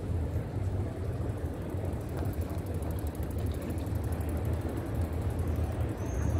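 Outdoor ambience of a busy pedestrian city square: a steady low rumble, with two short high chirps near the end.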